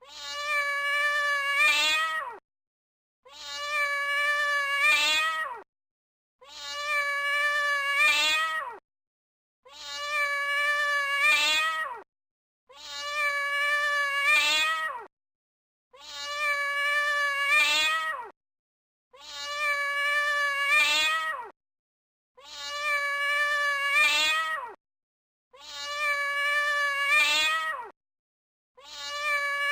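A cat's long, drawn-out meow, the same call repeated about every three seconds. Each call holds a steady pitch, then rises and breaks off at its end. The copies are identical, so it is one recording looped.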